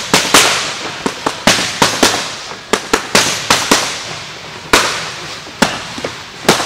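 Boxing gloves smacking Everlast focus mitts in quick combinations: about twenty sharp slaps, coming in fast flurries through the first four seconds and then more spaced out, each with a short echo from the room.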